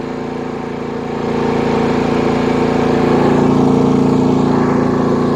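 Predator 9500 inverter generator's 459cc gasoline engine running steadily under heavy electrical load, near the point where its overload light comes on. It gets louder about a second in and then holds.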